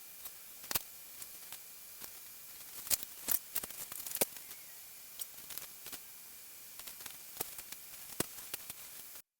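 Scattered light clicks, taps and small knocks over a steady hiss: metal and plastic parts of a miter saw stand being handled during assembly. The sound cuts off abruptly just before the end.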